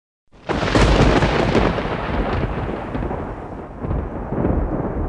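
Thunder sound effect: a sudden crack about half a second in, then a long deep rumble that eases off and swells again near the end.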